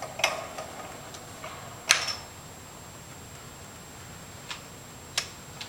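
A few short, sharp clicks and knocks from a Pilates Cadillac's spring-loaded push-through bar as it is pressed down and forward. The loudest comes about two seconds in. A faint steady hiss with a thin high tone runs underneath.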